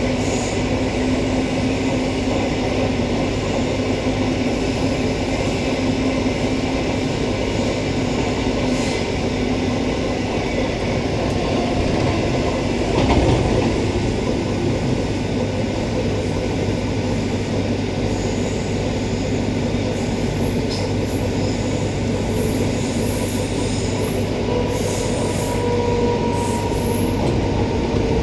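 Cabin running noise of a Queensland Rail Walkers-built electric multiple unit (EMU) under way: a steady rumble of wheels on rail. It gets briefly louder about halfway through, and a steady whining tone comes in near the end.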